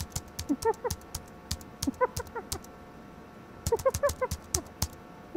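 Computer keyboard typing and clicking as someone calls up a video file, a steady run of light clicks. Three short clusters of squeaky chirps come in over the typing, about half a second, two seconds and four seconds in.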